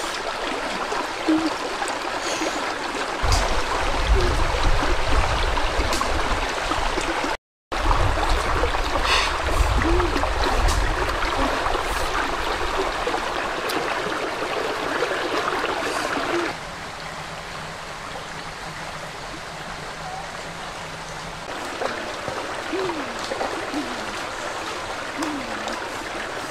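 Shallow rocky stream flowing and trickling steadily. A low rumble runs through several seconds of the first half, the sound cuts out briefly about a third of the way in, and the water sound drops quieter a little past halfway.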